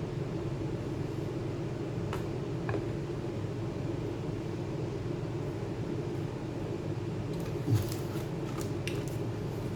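Steady low mechanical hum with a few light clicks, and a short thump about three-quarters of the way through.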